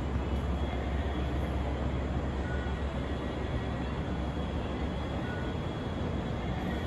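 Steady low rumble and hiss of background noise, with a short, faint high beep about every two and a half seconds.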